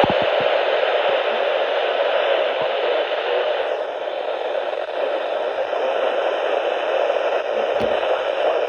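Steady radio static hiss from a weather radio receiver on a weak signal, with no voice coming through.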